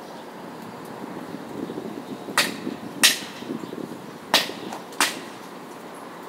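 Four sharp knocks in two pairs, each pair a little over half a second apart, over a steady low city hum.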